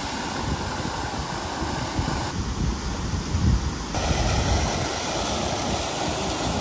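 Water fountain jets splashing down into the fountain's pool: a steady rushing hiss of falling water.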